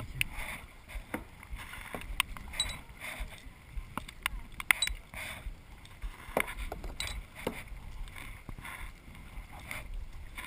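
Kayak paddle strokes: blades dipping and swishing through the water about once a second, with occasional sharp knocks.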